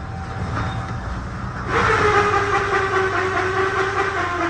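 Chevrolet 4.8L V8 idling with a steady low rumble; a little under two seconds in, a sustained high tone with overtones joins it and sinks slightly in pitch.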